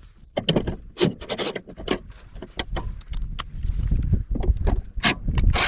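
Hand work on an electrical panel: scattered clicks, rattles and rubbing from tools and wire being handled, over a low rumble, busiest near the end.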